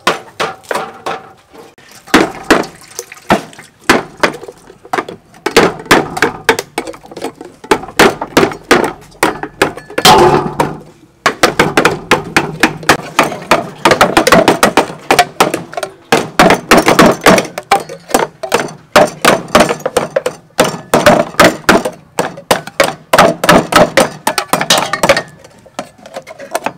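Tin cans being hacked open with a knife blade: rapid, irregular metallic taps and thunks as the blade strikes around the rims of the lids, with the thin tin clinking and ringing briefly.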